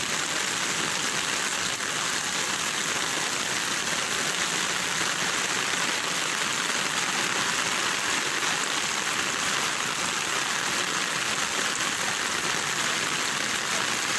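Heavy rain pouring steadily onto a flooded street, a continuous even hiss with no break.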